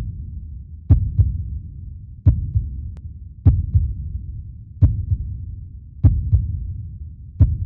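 Heartbeat sound effect: a slow, deep double thump repeating about every 1.3 seconds, each beat trailing a low sound that fades before the next.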